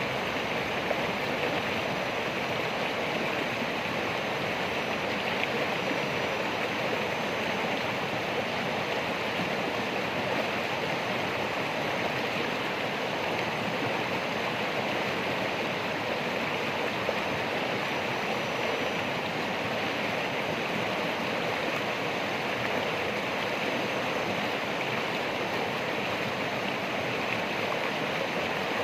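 Running water rushing steadily, an even, unbroken splashing flow.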